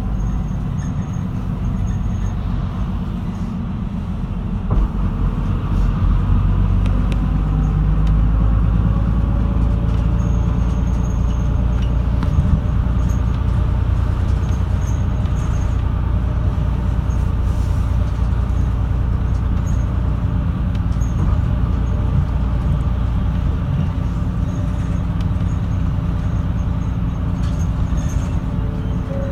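Route bus engine and road noise heard inside the passenger cabin, a steady low rumble with the engine note shifting as the bus drives. One louder knock comes about five seconds in.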